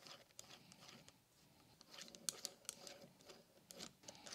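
Faint metallic ticks and clicks of a T-handle hex key working screws in a 5C collet chuck's backplate. The ticks are scattered, with a cluster about two seconds in and more near the end.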